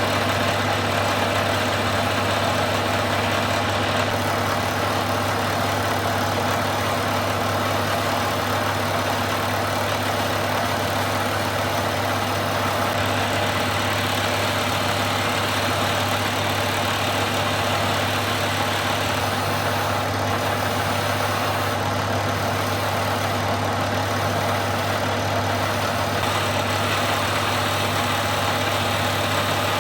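A machine running steadily with a constant low hum, its pitch and level unchanging.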